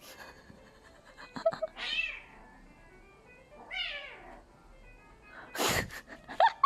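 Mother cat and her two-month-old kitten scuffling: two drawn-out yowling meows falling in pitch, then a short harsh burst a little before the end, followed by quick short meows.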